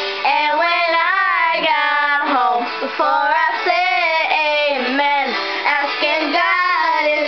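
Two young girls singing a pop song into handheld microphones.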